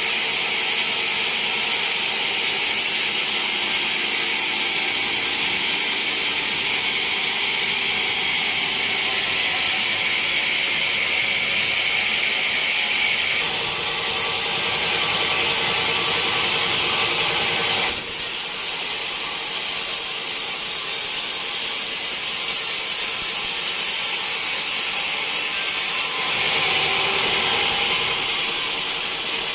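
Band sawmill cutting through a teak log: a steady, loud sawing noise sitting mostly high in pitch. Its tone changes abruptly three times, about halfway through and near the end.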